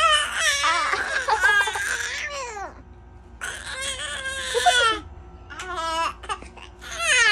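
A baby yelling loudly in high-pitched, wavering cries, in four bursts: a long one of nearly three seconds, then shorter ones with brief pauses between.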